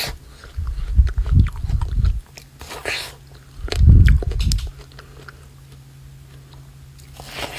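Slime being squeezed and pressed by hand, giving wet squishing with clicks and little pops. It is loudest in two stretches, about a second in and about four seconds in.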